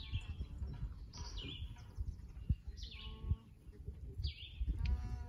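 A bird calling repeatedly: short high calls that slide downward in pitch, one about every second and a half, over a low rumble of wind or handling noise on the microphone.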